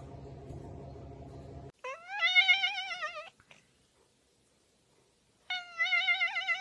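A cat meowing: two long calls with a wavering pitch, about three seconds apart.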